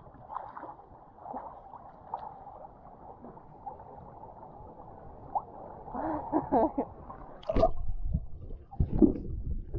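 Muffled water gurgling and sloshing around a half-submerged waterproof camera as a swimmer moves through a seawater rock pool, with two sharp splashes about two thirds of the way in and near the end.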